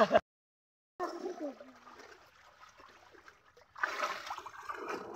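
Water splashing and sloshing as people wade through a shallow pond, loudest from near the end, with a brief voice before it. The sound cuts out completely for most of the first second.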